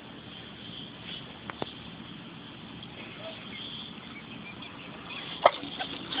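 A dog gives one short, loud yelp about five and a half seconds in, the sign of an electric fence shock as it touches the wire; before that only low outdoor background.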